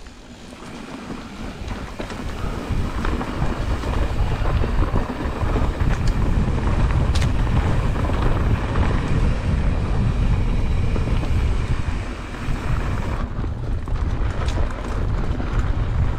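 Wind buffeting the microphone and a mountain bike's tyres rumbling over a dirt trail while riding, growing louder over the first five seconds or so, with a few sharp clicks and rattles from the bike.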